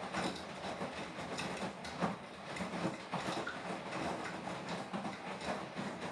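Beko WTK104121W washing machine turning its drum during a Quick 40 wash: a steady motor hum under irregular knocks and swishes from the tumbling load.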